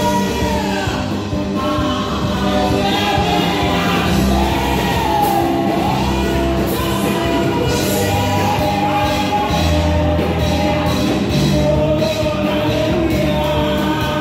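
Live gospel song: a woman sings into a microphone, her voice amplified through the hall's sound system over band accompaniment with a steady bass line and percussion.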